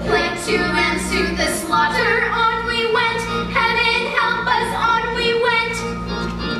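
A song: singing over instrumental accompaniment, with held notes changing about every half-second above a steady bass.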